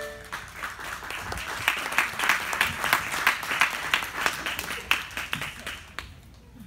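A small group clapping as a gymnastics floor routine ends; the floor music stops just as the applause begins, and the clapping dies away after about six seconds.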